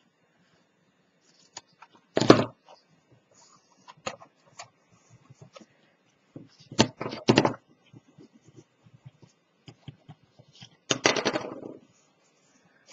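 Hands handling cardstock and paper pieces on a cutting mat: short rustles and knocks, one about two seconds in, two close together around seven seconds, and a longer rustle near eleven seconds.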